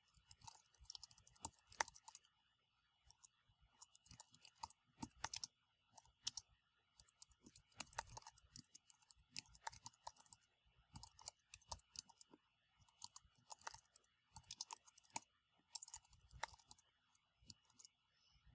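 Faint computer keyboard typing: irregular key clicks in uneven runs, with short pauses between bursts.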